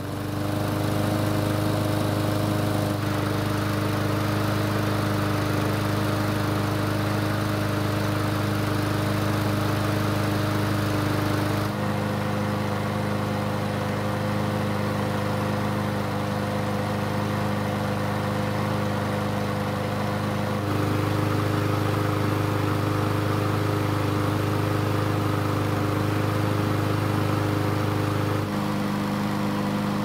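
Briggs & Stratton single-cylinder four-stroke engine on a push mower, running steadily just after starting, its pitch shifting slightly a few times. It follows a poor startup, which the owner puts down to a blockage in the uncleaned carburetor starving the fuel flow.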